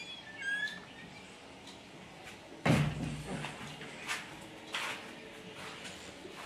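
A single heavy thump about three seconds in, then a few lighter knocks. Short high chirps sound near the start.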